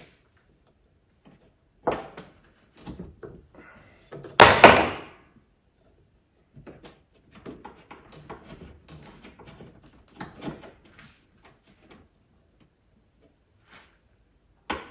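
Clicks and knocks of a gas lift strut being fitted to the hatch's ball-stud mount, with one loud clunk about four and a half seconds in and a run of small clicks and taps after it.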